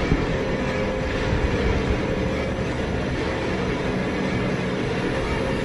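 A train passing, a steady, even rumble with a faint held tone running through it.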